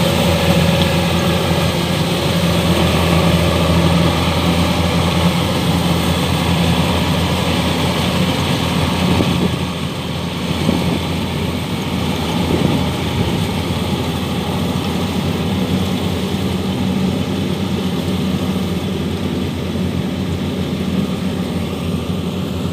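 Kubota DC-105X rice combine harvester running steadily under load as it cuts and threshes rice, a continuous diesel engine drone with a low hum. It turns a little quieter about ten seconds in.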